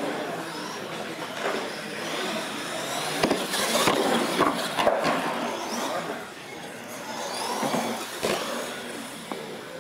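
Electric radio-controlled monster trucks racing: motors whining and rising and falling in pitch as they speed up and slow down, with a few sharp knocks, one just after a truck lands off a ramp near the end.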